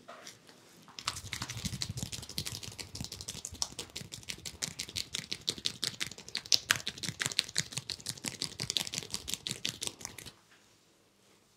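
Fast patter of a barber's fingers slapping and tapping a man's cheek and jaw in a face massage, many quick light strikes a second. It starts about a second in and stops abruptly near the end.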